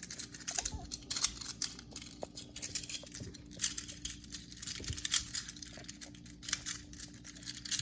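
Plastic infinity cube being folded and flipped in the hands: a run of quick, irregular light clicks and clacks.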